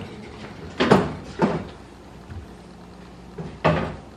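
Kitchen cupboard doors being opened and shut, with three sharp knocks about a second in, half a second later, and near the end.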